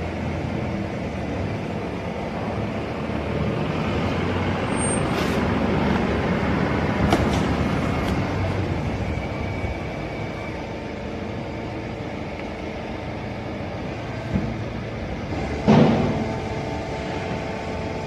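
Fully automatic horizontal hydraulic baling press running with a steady machine drone and hum, swelling for a few seconds early on. A few sharp clunks break through, the loudest about three-quarters of the way in.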